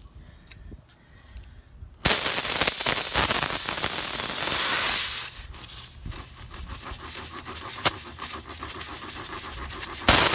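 Pressurized air hissing out of a punctured truck tire through the puncture hole, which the reamer has just enlarged. The hiss starts suddenly and loudly about two seconds in and weakens after a few seconds, with a rapid scraping rhythm as the reamer is worked in and out. It comes back loud just before the end.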